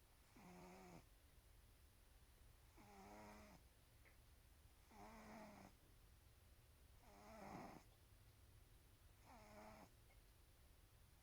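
A cat snoring faintly, one short pitched snore about every two seconds, five in all.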